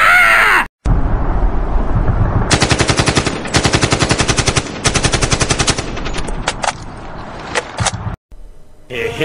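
Sound effect of rapid automatic gunfire in several bursts, followed by a few single shots near the end.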